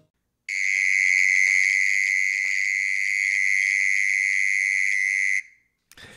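Mole cricket singing: one steady, high-pitched trill held for about five seconds, then cut off abruptly.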